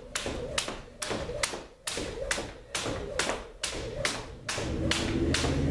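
Jump rope striking a hardwood floor in a steady rhythm, about three sharp slaps a second, with the skipper's footfalls in high-knee skipping. A low steady hum comes in near the end.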